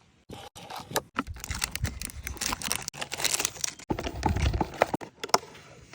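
Dense, rapid clicking and crackling, with a low thud about four seconds in.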